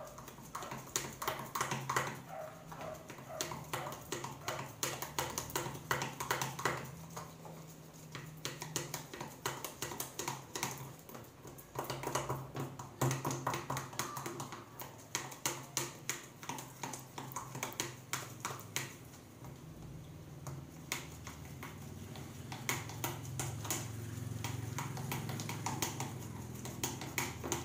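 Slime mixture of glue and detergent being stirred by hand, a fast, irregular run of wet clicks, over a steady low hum.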